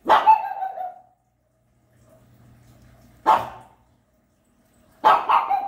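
Japanese Chin barking angrily. There is one drawn-out bark at the start, a single bark about three seconds in, and two quick barks near the end.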